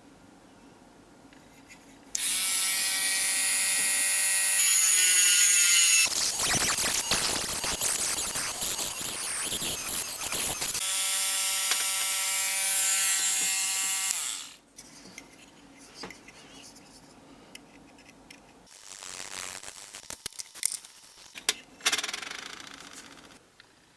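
A small high-speed electric tool motor runs with a steady whine, starting about two seconds in. For a few seconds in the middle it changes to a harsh rasping noise, then it whines again and winds down about halfway through. A few light clicks follow near the end.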